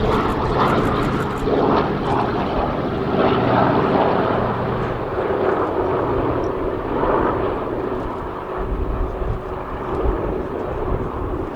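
Radial piston engines of a Second World War propeller warbird in flight, a steady droning that eases down a little as it passes.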